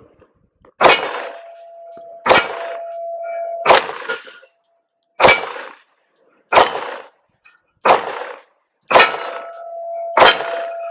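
Gen 2 Glock 23 pistol in .40 S&W fired eight times at a steady pace, about one shot every second and a half. Each hit leaves the steel plate target ringing with a steady tone.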